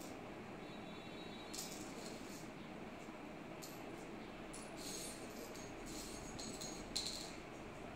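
Loose metal screws and bolts clinking and jingling as they are sifted through by hand, in several short spells of clinking, the sharpest near the end, over a steady low hiss.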